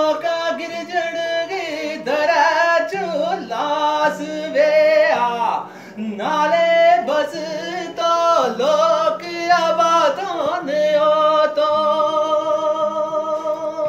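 A man singing a Gojri folk song unaccompanied, the melody bending and wavering in long phrases and ending on a long held note near the end.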